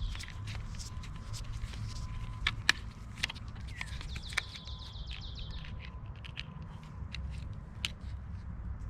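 Scattered light clicks and taps, with a bird singing a rapid trill of high notes about four seconds in.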